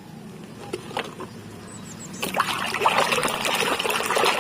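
Water splashing and trickling as a toy is washed in water, starting about two seconds in after a few faint clicks.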